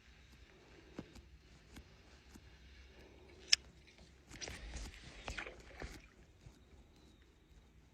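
Small knocks and clicks on a kayak, with one sharp click, then about two seconds of splashing or rustling with a few knocks, as from a paddle stroke against the boat.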